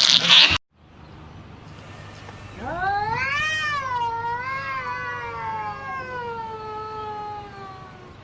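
A loud burst of noise that cuts off abruptly under a second in, then a cat's single long, drawn-out yowl that rises in pitch and then slowly sinks over about five seconds.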